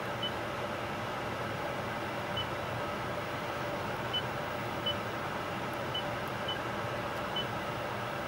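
Toyota Entune 2.5 touchscreen giving a short, high beep for each on-screen key press: about seven beeps at irregular intervals as letters and numbers are tapped in. A steady background hum runs underneath.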